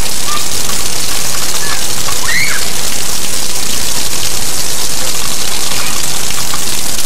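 Steady rain, a loud even hiss, with one brief high call from a child about two and a half seconds in.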